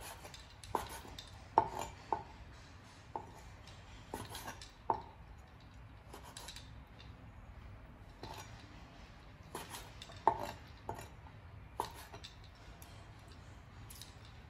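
Steel cleaver knocking on a wooden cutting board while mincing garlic, in irregular strikes spaced out rather than a steady rapid chop, a few of them much sharper and louder.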